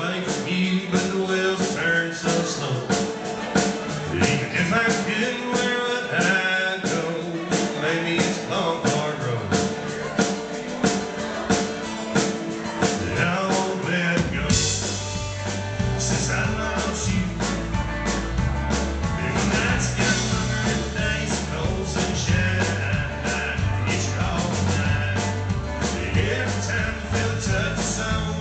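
Live country-rock band playing: drums, electric and acoustic guitars and bass guitar. About halfway through, the bass and cymbals come in much fuller.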